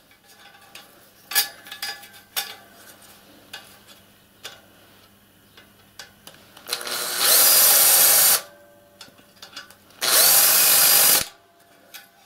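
Cordless drill running in two bursts of about a second and a half each, countersinking a screw hole in a mild steel boiler band. Light clicks and knocks of handling come first.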